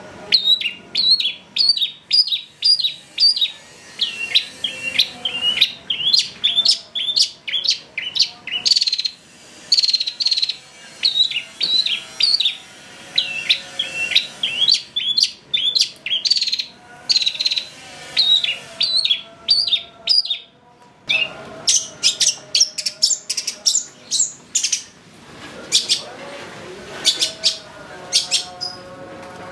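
Long-tailed shrike singing a fast, choppy run of sharp chirping notes in quick phrases, with a brief pause a little past two-thirds of the way through before it starts again.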